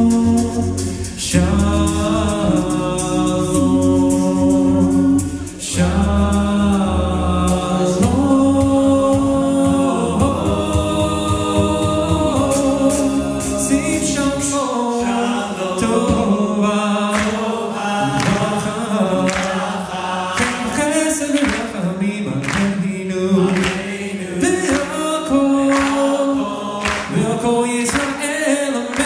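Male a cappella group singing live into microphones in close harmony, with a sustained sung bass line under the upper voices. About halfway the bass drops out and sharp vocal-percussion hits come in under the voices.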